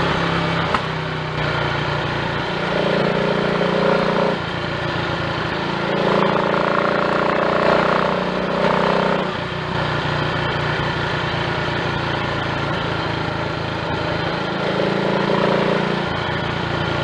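Triumph Tiger Cub's small single-cylinder four-stroke engine running under way on a ride. Its note rises three times and drops back abruptly after each. It runs without misfiring on its new carburettor slide, needle, needle jet and main jet.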